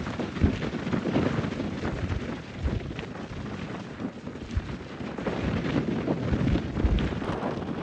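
Blizzard wind gusting hard against the microphone, a dense rushing noise with deep buffeting rumbles that rise and fall unevenly, easing a little near the end.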